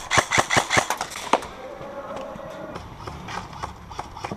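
Airsoft gun firing a quick string of about eight shots over the first second and a half, covering fire on a count of three, then only faint scattered ticks.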